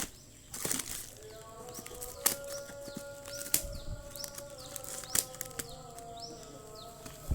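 Packaging being handled during an unboxing: rustles and scattered sharp clicks, over faint sustained notes of background music.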